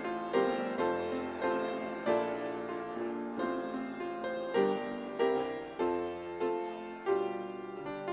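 Church keyboard with a piano sound playing the postlude: chords struck about once a second, each fading away before the next.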